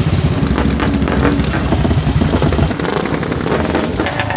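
Racing engine running loud at high revs, with a rapid, rough run of exhaust pulses; the deep engine note eases off about two and a half seconds in. Wind buffets the microphone.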